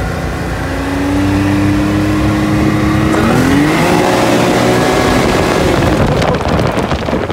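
Can-Am Maverick X3 side-by-side's turbocharged three-cylinder engine running at low speed, heard from the open cockpit; about three seconds in its pitch rises as it speeds up and then holds. A rougher rushing noise joins near the end.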